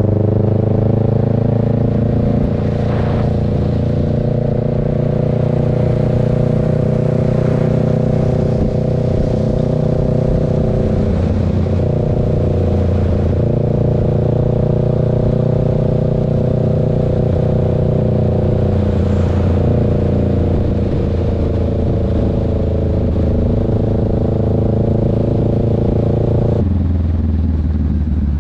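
A motorcycle's engine drones steadily at cruising speed, heard from on the bike while riding. The note wavers briefly about eleven seconds in and drops near the end.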